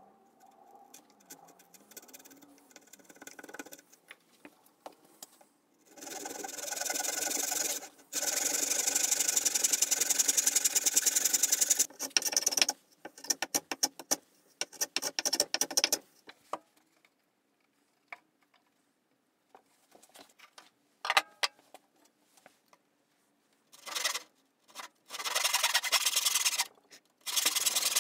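Hand woodworking tools on spruce: scattered light taps and scrapes, then long runs of rasping strokes on the wood, the last of them a hand saw cutting near the end.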